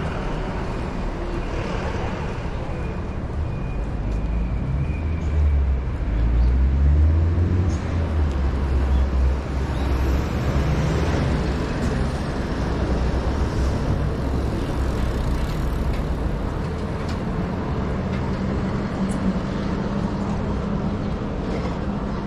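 City street traffic with a heavy vehicle's engine rumbling close by, loudest between about five and ten seconds in, then a steady low engine hum.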